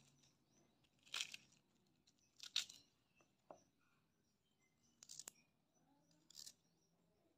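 Napa cabbage leaves torn by hand, a few short crisp rips in the first half, then a knife cutting pieces off a carrot held in the hand, a couple of short cuts. Near silence between them.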